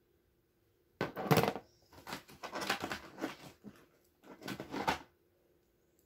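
Hands handling the small metal interchangeable tips of a set of snap ring pliers: rustling and clicking in three bursts, the loudest about a second in.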